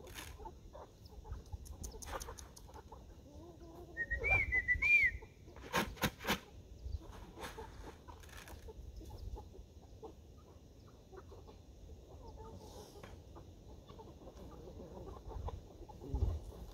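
Chickens clucking around their coop, with two short arching squawks about four to five seconds in. A few sharp knocks come about six seconds in.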